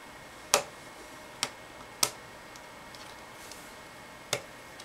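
Four sharp clicks of small plastic parts being pressed and fitted back onto the edge of an HP TC1100 tablet's chassis, unevenly spaced, the first the loudest.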